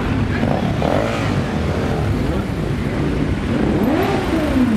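A procession of motorcycles riding past close by, many engines running together in a dense, steady mass. One or two bikes rev up and back down in pitch as they pass, about a second in and again near the end.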